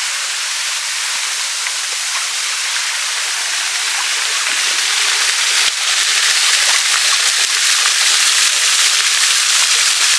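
A small waterfall running: a steady, high rushing hiss of falling and splashing water. It gets louder about six seconds in, with crackly splashing from then on.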